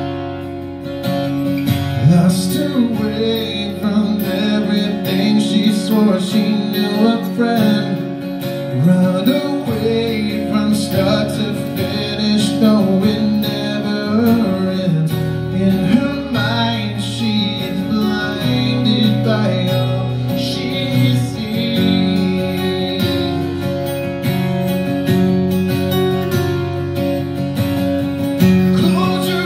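Acoustic-electric guitar strummed steadily in a live song, with a man singing over it from about two seconds in.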